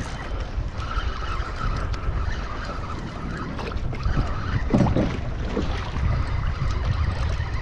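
Wind buffeting the microphone over water splashing against a kayak hull on choppy sea, with one short pitched sound about five seconds in.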